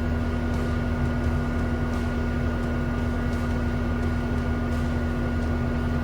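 The Takeuchi TL12V2 skid steer's 112-horsepower turbocharged diesel engine running steadily, heard from inside the cab: an even low rumble with a steady hum and a fainter, higher steady tone over it.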